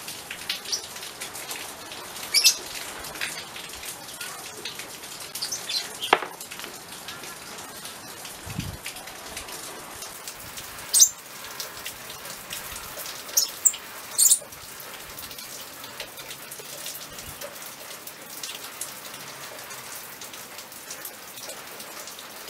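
Small turned wooden toy wheels, a wooden block and a thin metal axle rod being handled and fitted together: scattered light clicks and taps, a few sharper ones standing out, over a steady background hiss.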